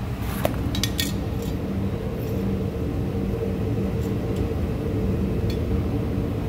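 A 2010 Chrysler Sebring's 2.7-litre V6 idling steadily, heard at the tailpipe exhaust, with a few light clicks about a second in.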